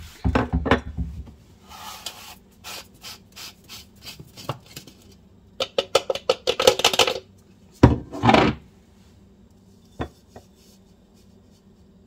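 Handling of a plastic Ninja blender cup full of dried vegetable powder and a small ceramic dish on a countertop. A dish is knocked down at the start. The cup is shaken upside down, giving a quick rattling run about halfway through, followed by a scraping twist as the blade base comes off and a couple of clicks. The blender motor is not running.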